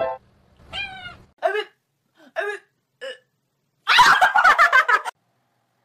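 A few short, separate sounds, then a person laughing hard in a loud burst of about a second, about four seconds in.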